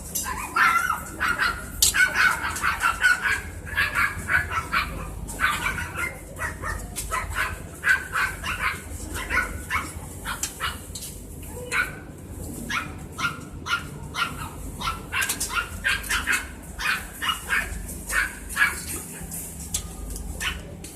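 An animal giving short, high yelping cries over and over, several a second, in long busy runs with brief pauses.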